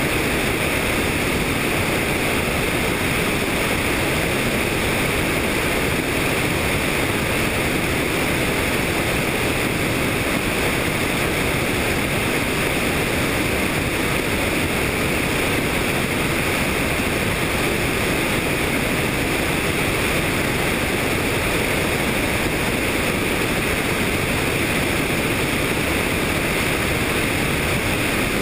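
Helicopter in flight: a steady, unchanging rush of engine, rotor and wind noise.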